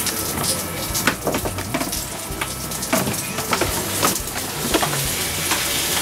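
Food sizzling and frying in a pan on a galley stove: a steady hiss with many sharp crackles and clicks.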